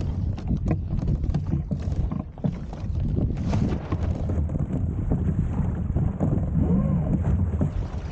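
Wind buffeting the microphone aboard a Hobie Tandem Island sailing kayak under way, with water rushing along the hull. Scattered sharp knocks come through in the first few seconds.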